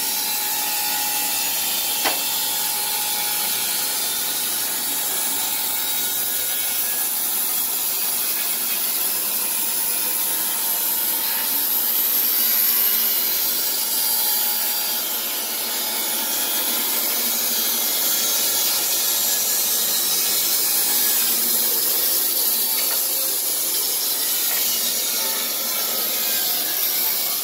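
Wood-Mizer LT15 portable band sawmill with its band blade cutting lengthwise through a log: a steady sawing hiss, with one sharp click about two seconds in.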